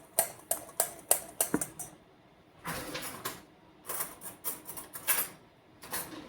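Dry seasoning blend being mixed up in a container: runs of quick light clicks, about five a second, with a stretch of rough scraping in the middle.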